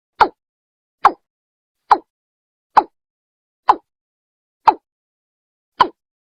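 Watercock (Gallicrex cinerea) calling, from a lure recording: a series of short single notes a little under a second apart, seven in all, the gaps widening slightly.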